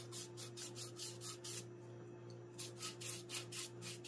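Foam brush rubbed in quick back-and-forth strokes, about five a second, over rough barn board as it spreads a wet coffee stain, with a pause of about a second midway. A steady low hum runs underneath.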